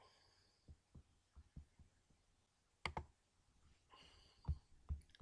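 Near silence broken by a few sharp computer mouse clicks, with fainter low knocks between them.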